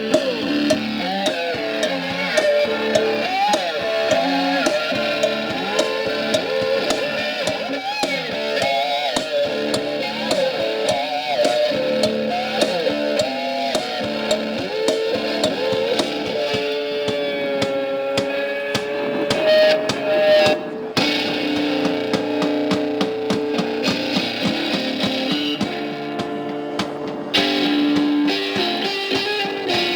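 Live blues-rock band playing an instrumental break: an electric guitar solo with bending, wavering notes over a steady drum beat, with a long held, vibrating note about two-thirds of the way through.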